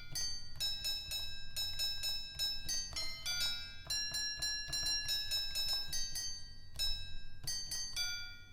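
EASYPLAY 1s pocket keyboard playing a melody of quick, high, short plucked-sounding notes, several a second, in one of its built-in sound presets.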